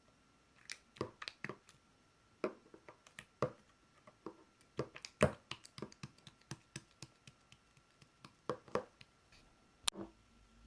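Marbled slime being squeezed and kneaded by hand, giving irregular sharp clicks and pops, with a last sharp pop near the end.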